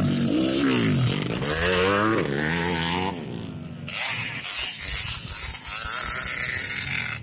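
Motocross bikes revving hard through a dirt corner, the engine pitch rising and falling with the throttle. About four seconds in, a loud hissing rush begins as a spinning rear wheel throws up dirt.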